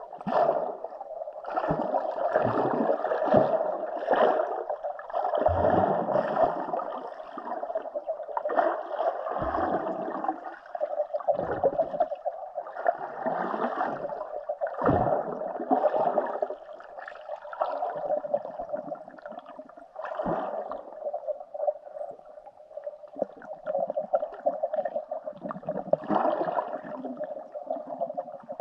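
Muffled underwater water noise: a steady swirl of moving water and bubbles heard below the surface, with irregular dull thuds every second or two in the first half.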